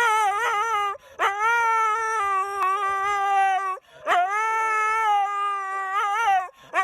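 A pet animal howling: three long, drawn-out calls, each wavering in pitch near its end, with short breaks between them.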